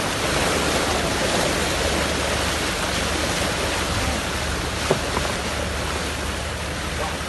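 Steady rush of sea water along a moving tour boat's hull, with the low, even hum of its engine underneath. A single short knock about five seconds in.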